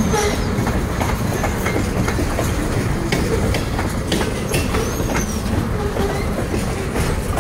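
Freight cars, covered hoppers and tank cars, rolling slowly past with a steady rumble and irregular clicking of wheels on the rails. A brief high wheel squeal comes about five seconds in.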